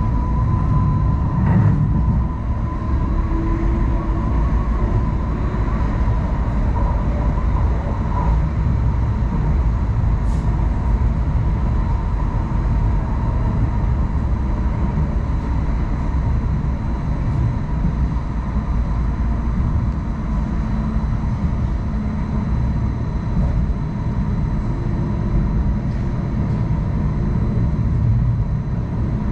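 Hong Kong Light Rail Phase I two-car train running along the line: a steady low rumble of wheels on track with a thin, steady high whine over it.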